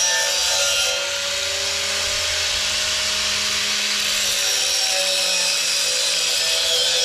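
Corded angle grinder grinding a steel U-channel down to bare metal for welding: a steady loud hiss of the disc on steel over the motor's whine, which drops a little about a second in as the disc bites.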